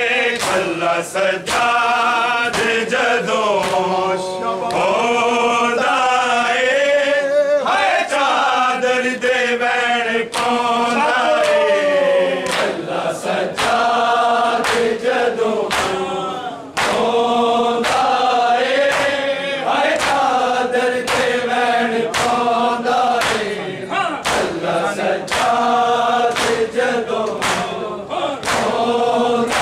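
Male voices chanting a Punjabi noha (Muharram mourning lament) together, over a steady beat of sharp slaps from bare-handed chest-beating (matam) keeping time.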